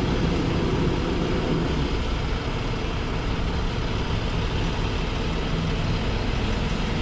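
Engine idling steadily, a low even hum that does not rise or fall.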